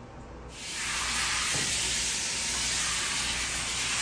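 Dog-wash hand sprayer hosing water onto a dog's wet coat: a steady spray hiss that starts about half a second in.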